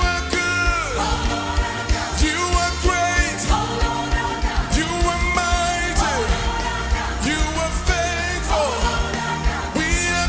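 Gospel worship song sung with band backing: voices slide up and down between held notes over a steady bass line and drum beat.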